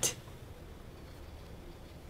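A pause between spoken sentences: only a faint, steady background hiss after the last word ends at the very start.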